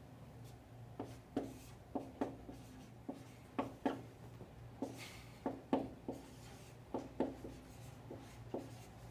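Chalk writing on a chalkboard: a run of short, sharp taps and scrapes at irregular intervals as letters are written, over a low steady hum.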